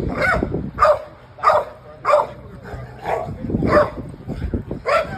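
A dog barking over and over in a steady rhythm, a bit under two barks a second.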